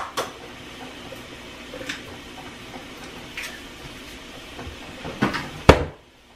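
Kitchen handling sounds at the counter: a few light clicks and knocks, the loudest a sharp knock near the end, over a steady low hiss from the stove where bacon is frying and water is heating.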